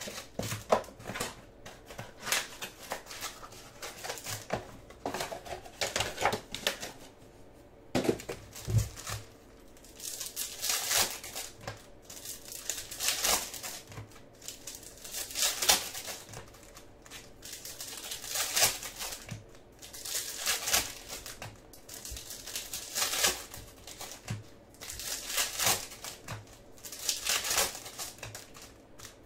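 Foil wrappers of baseball card packs crinkling and tearing as the packs are opened and handled, in repeated bursts every couple of seconds.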